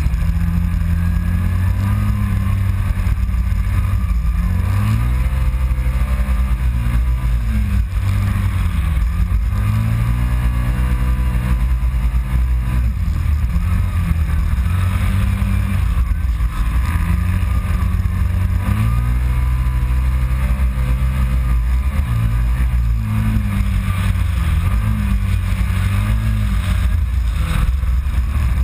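Kawasaki Teryx side-by-side's V-twin engine running hard, heard from on board, its pitch rising and falling again and again with the throttle. Under it runs a steady rush of wind and driving noise.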